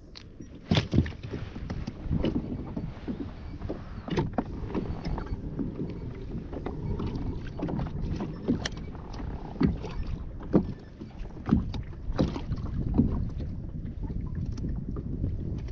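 Choppy sea water slapping and lapping against a plastic pedal kayak's hull, with repeated sharp knocks, some about a second apart, over a low steady rumble.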